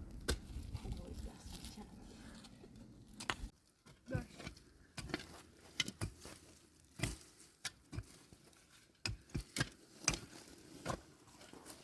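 A series of irregular sharp clicks and knocks, with a brief murmur of a voice about four seconds in.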